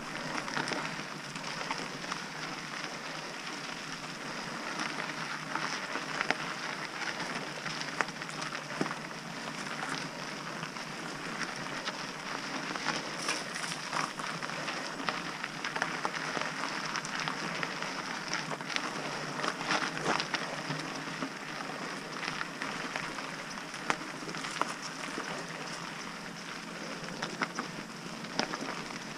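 Mountain bike tyres rolling and crunching over dry dirt and loose gravel on singletrack, a steady rushing noise with many small clicks and rattles from the bike over the bumps.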